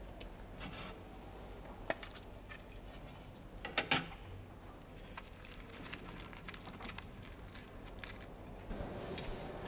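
Quiet handling of a small metal tobacco tin: a couple of sharp metallic clicks about four seconds in as the tin is handled open, then foil crinkling and rustling as fingers pick through the tobacco.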